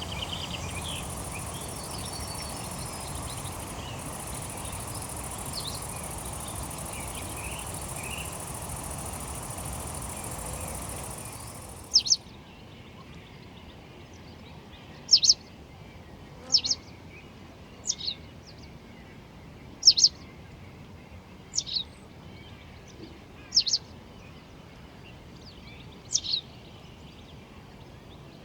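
Outdoor ambience: a steady rushing noise with a high, even hiss and faint scattered bird chirps. About twelve seconds in it drops to a quieter background, where a bird gives a short, sharp, falling call every two seconds or so, sometimes doubled.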